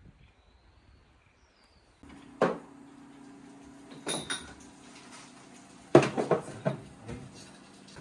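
Near silence at first, then a steady low hum with scattered knocks and clatters of dishes and kitchenware being handled. The loudest is a quick run of sharp knocks about six seconds in.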